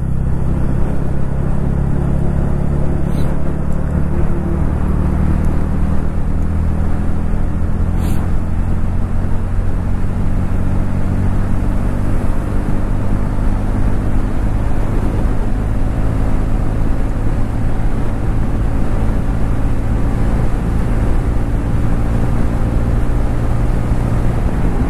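TVS Ronin 225's single-cylinder engine running steadily at cruising speed on the highway, heard from the rider's seat with wind rushing over the microphone.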